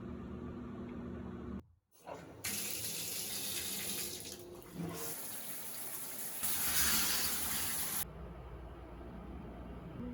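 Water running from a tap into a sink for about five seconds, starting a couple of seconds in and cutting off suddenly near the end. Before it, a steady low hum.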